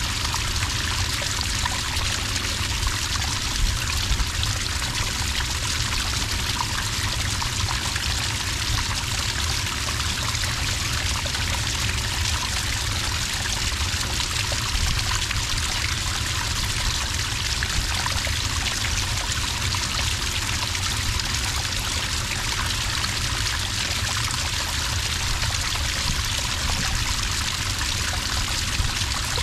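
Small cascade of water pouring and trickling steadily into sand.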